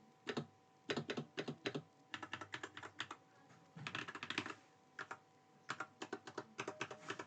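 Typing on a Gamakay LK67 mechanical keyboard with Glorious Panda tactile switches and HyperX keycaps: quick keystrokes in irregular bursts, separated by short pauses of under a second.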